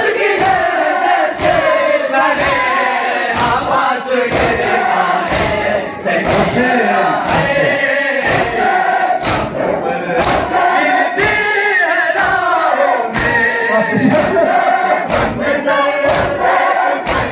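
Noha chanted by a group of male voices through a microphone, with a large crowd beating their chests in matam: a steady rhythm of thuds a little under two a second under the singing.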